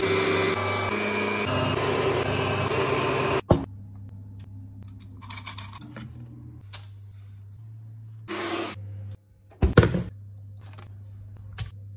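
Stand mixer running, its whisk beating eggs in a steel bowl, a steady loud whirr that cuts off suddenly after about three and a half seconds. Then only quiet handling sounds with a few brief knocks.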